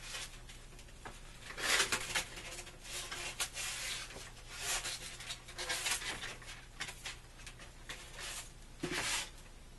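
Top piece of a marker board's frame being worked loose and pulled off by hand: irregular scraping and rubbing with a few small knocks. The louder scrapes come about two seconds in and again near the end.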